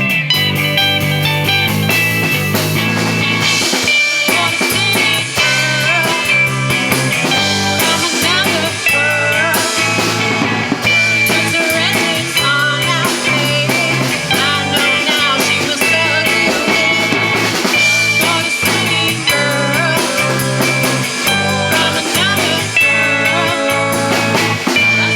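A rock band playing live: electric guitar with bass and a drum kit keeping a steady beat.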